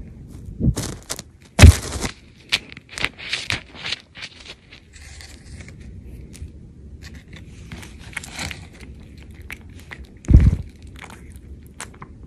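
Rubbing and scraping right on the microphone, with a run of short scuffs and two loud bumps, one about a second and a half in and one about ten seconds in: a cat's fur and face brushing and bumping against the phone.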